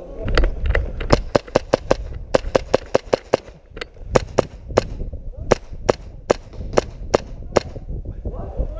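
Rapid semi-automatic airsoft gunfire: about two dozen sharp cracks in quick strings of five or six, roughly five shots a second, with short pauses between the strings.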